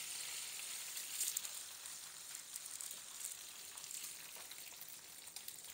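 Hot oil sizzling in a nonstick frying pan as cooked rice is tipped into it: a steady crackling hiss that fades a little toward the end.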